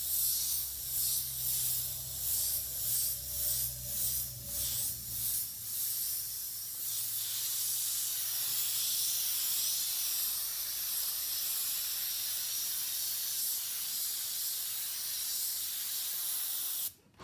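Airbrush spraying paint: its air hiss comes in short on-off pulses, about two a second, for the first several seconds, then runs as a steady hiss. A low hum sits under the early pulses.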